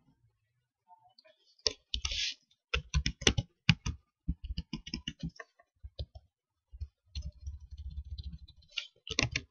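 Computer keyboard typing: irregular key clicks in quick runs, starting about a second and a half in, as text is typed and deleted.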